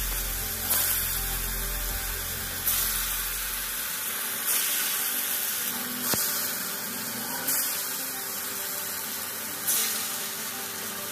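Banana flower and chana dal balls deep-frying in hot oil: a steady hissing sizzle with a sudden louder surge every two seconds or so.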